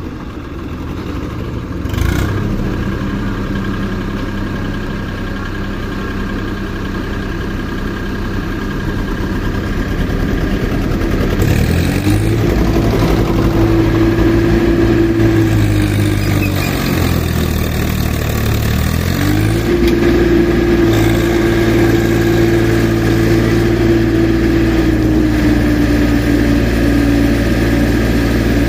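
Swaraj 855 tractor's three-cylinder diesel engine working hard to pull a laden trolley, with a knock about two seconds in. The engine is revved up and held at high revs twice, dipping briefly in between around the middle.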